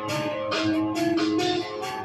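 Music with guitar playing over a regular beat of about two strikes a second.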